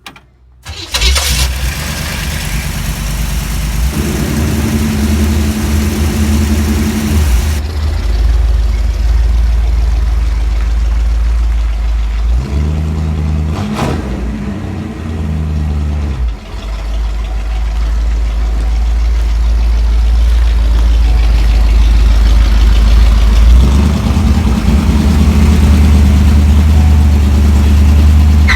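A 1961 Chevrolet Impala's engine starts up about a second in and keeps running, its pitch shifting up and down several times.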